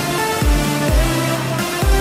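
Electronic dance background music with deep kick drums and bass notes.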